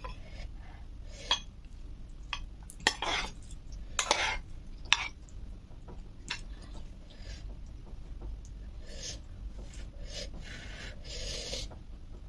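Cutlery clinking and scraping against a dish: a few sharp clicks in the first five seconds, then softer rubbing and scraping sounds.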